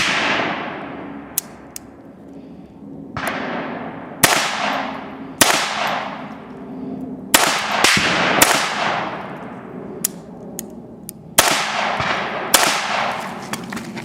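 .22 rimfire shots at steel targets, each followed by the ringing of the struck plate: about nine shots in uneven strings, with pauses of a second or more between some of them.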